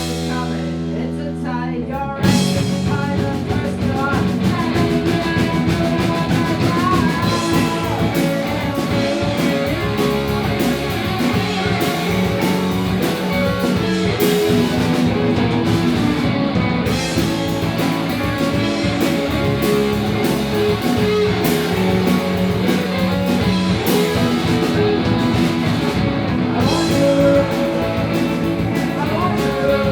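Live rock band playing with electric guitars, drum kit and singing. A chord is held for the first two seconds, then the drums and full band come in hard.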